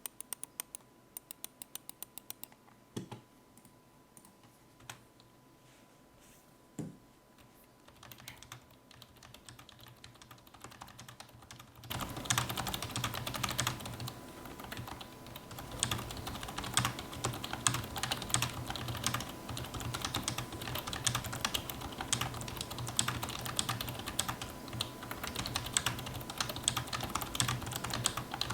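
Keys of a Xiaomi wireless keyboard being typed on. A quick run of key presses and a few scattered ones are followed, from about twelve seconds in, by louder, continuous fast typing.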